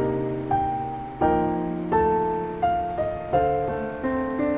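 Background piano music: soft notes and chords struck about every half second to second, each ringing and fading away.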